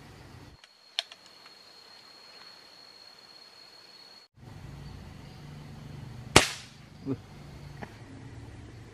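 PCP air rifle shot: a loud, sharp crack about six seconds in, followed under a second later by a dull thump. A fainter sharp crack comes about a second in.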